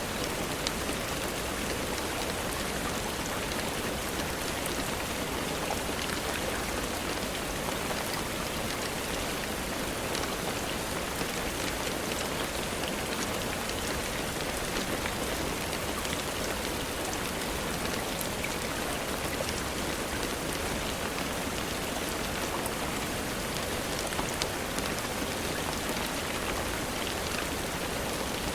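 Steady, dense rainfall with scattered faint ticks through it.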